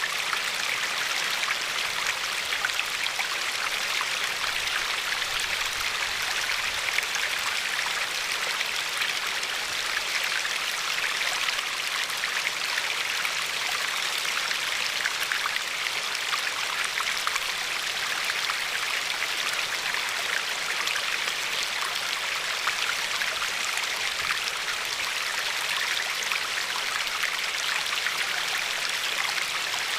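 River water running over a pebbly bed and lapping at the shore: a steady rushing babble with fine splashes and droplet ticks, strongest in the upper-middle pitches.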